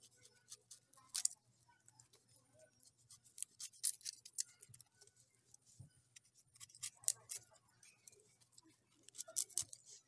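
Kitchen knife slicing hands of young green bananas off the stalk: irregular short, sharp cutting clicks and snaps as the blade goes through the fibrous crown.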